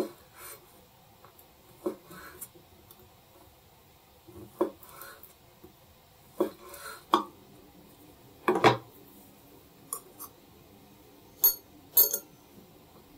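Kitchen utensils and dishes knocking and clinking in a series of separate short taps. The heaviest knock comes about two-thirds through, and brighter, sharper clinks come near the end.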